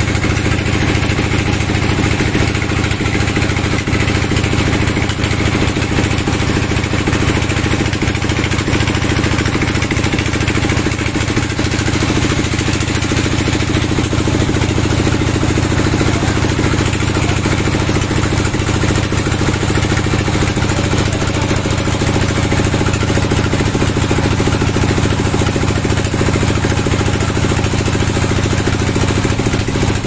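An engine running steadily at a constant speed, with no revving or change in pitch.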